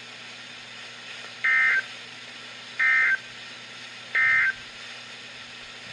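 NOAA Weather Radio sending the three short SAME End-of-Message data bursts that close an alert broadcast: three identical brief electronic chirps, about a second and a half apart.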